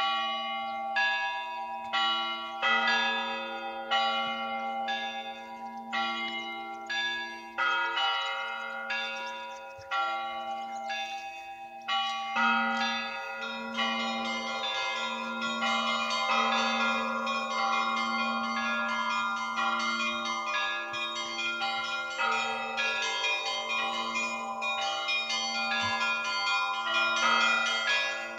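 Russian Orthodox church bells ringing (zvon): several smaller bells struck in a rhythm over the steady hum of a larger bell. The strokes come about once a second at first and grow denser and overlapping from about halfway through.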